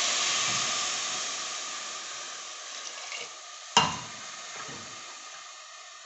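Water poured into a hot pressure cooker of sautéed rice, dal and vegetables sizzles and hisses as it hits the hot pan, the sizzle slowly dying away. A single sharp knock about four seconds in.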